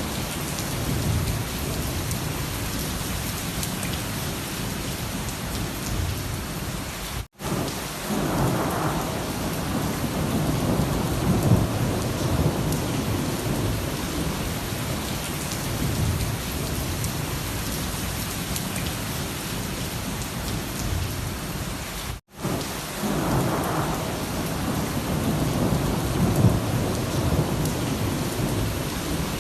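Heavy rain with thunder: a steady hiss of rain on surfaces under low rolling rumbles of thunder that swell and fade. The sound cuts out to silence for an instant twice, about seven and twenty-two seconds in.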